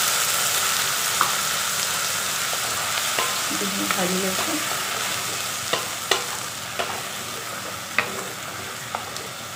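Onion-garlic-chilli masala paste and chillies sizzling in hot oil in a karahi while being stirred, a utensil clicking against the pan now and then. The sizzle slowly eases off.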